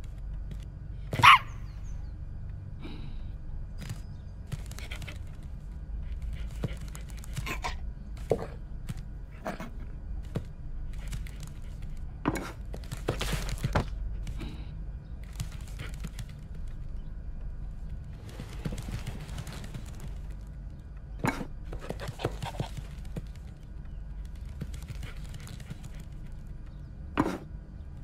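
Sound effects for a cartoon dog moving on a tiled kitchen floor: scattered light footsteps, knocks and thuds as it noses under a wooden cupboard, over a steady low hum. A short sharp sound about a second in is the loudest.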